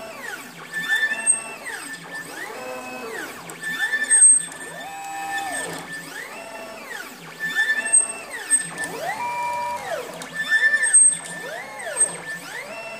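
3D printer stepper motors whining through rapid back-and-forth moves. Each move's pitch climbs as the motors speed up, levels off and falls as they slow, about once a second, giving a sing-song run of rising and falling tones. The slow climbs come from the low acceleration set for the heavy bed.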